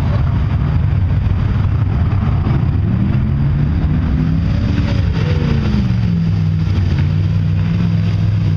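Pickup truck engine revving hard as the truck ploughs through a mud pit, over a constant low rumble. The revs climb about three seconds in, drop back at around five seconds, then hold steady and high.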